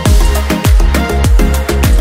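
Electronic dance music with a steady beat: a deep bass drum whose pitch drops on each hit, about two hits a second, under held synth notes.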